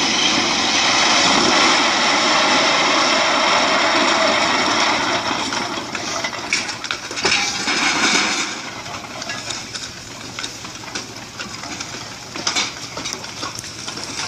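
Landslide tearing through village houses: a loud, steady rush of sliding earth and debris for about eight seconds, then quieter, with a few sharp cracks of timber and buildings breaking.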